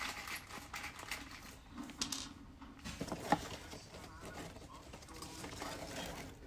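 Handling noise: light rustling and small clicks as a foam pet-button tile and rubber grommets are handled, with one sharper click about three seconds in.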